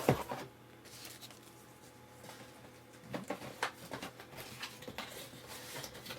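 Faint handling noises of disc box sets and their packaging being moved: light rustles and small knocks. There is a sharper knock right at the start and a cluster of rustles around three to four seconds in.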